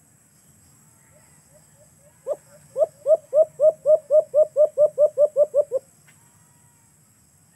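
A caged alimokon dove calling: after a few faint notes comes a run of about fourteen short, hooked coos that speed up over about three and a half seconds, then stop.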